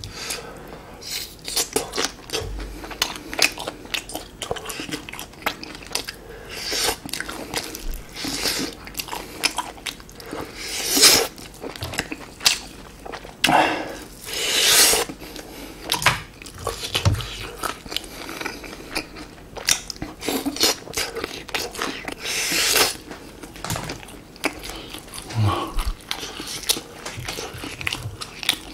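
Close-miked eating of grilled chicken skewers: meat bitten off the skewer and chewed, with many short mouth clicks and smacks.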